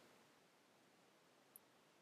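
Near silence: faint steady hiss, with one tiny high tick about one and a half seconds in.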